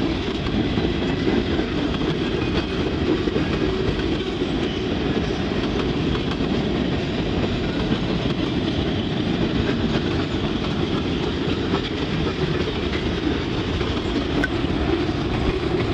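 Cars of a CSX mixed freight train rolling past close by, centerbeam flatcars and then boxcars: a steady rumble of steel wheels on the rails, with light clattering.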